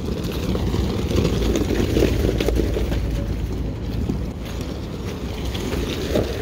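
A few vehicles driving slowly past: a low rumble of engines and tyres, loudest about two seconds in, then easing off.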